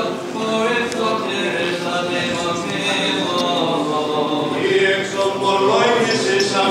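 Orthodox liturgical chant sung a cappella by a group of voices, slow held notes moving from one to the next.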